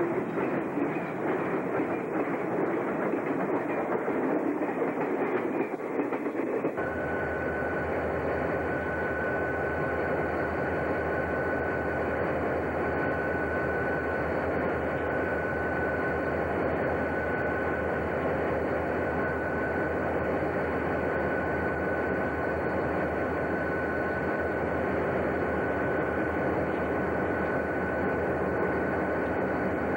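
EMD SW1200RS diesel locomotive and its train running past. About seven seconds in, the sound changes abruptly to a steadier engine drone with a constant high tone.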